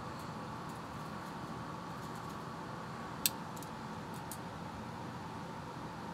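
Steady whir of an electric fan running in a small room, with a few light clicks a little past halfway, the sharpest one just over three seconds in.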